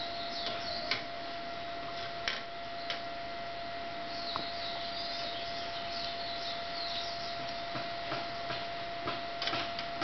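Birds chirping over a steady high-pitched hum, with a few short light clicks.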